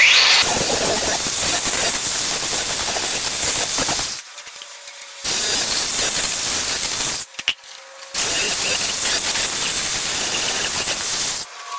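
Cordless angle grinder grinding a steel piece, in three long passes broken by short pauses about four and seven seconds in, with a steady high whine over the grinding.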